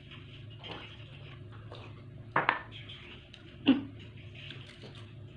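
Eating by hand from a foil-lined tray: aluminium foil crinkling as fingers pick at the chicken and rice, with two sharp knocks, like a hand or dish striking the tray, a little over a second apart around the middle.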